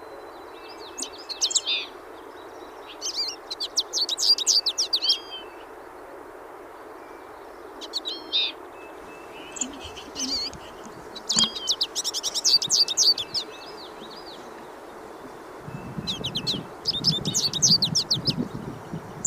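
Hooded siskins (pintassilgos) singing: fast, high twittering song phrases a second or two long, coming again and again every few seconds, over a steady background hiss.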